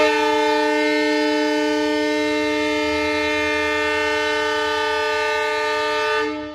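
Goods train's locomotive horn sounding one steady blast of about six seconds, several tones together, that starts abruptly and stops just before the end: the departure signal of the empty coal train.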